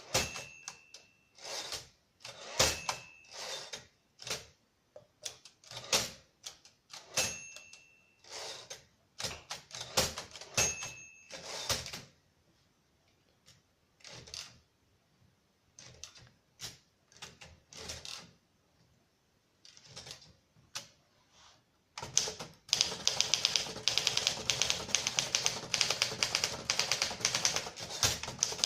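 1956 Torpedo 18 typewriter being worked. Irregular, spaced-out key and mechanism strokes come first, with a few brief ringing pings. Then come slower, quieter scattered strokes, and from about two-thirds through, fast continuous typing.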